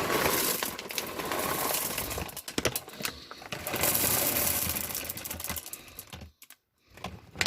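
Chocolate chips being poured into a pan: a rapid rattle of many small pieces, in two stretches with a short pause between.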